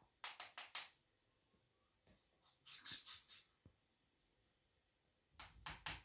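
African grey parrot making quiet runs of three or four quick, sharp clicks, three times over.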